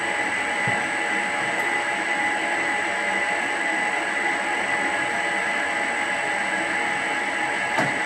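Victor metal lathe running steadily on a single-phase to three-phase inverter: an even mechanical whir with a steady high-pitched whine over it and the inverter's cooling fan in the background. A single click near the end.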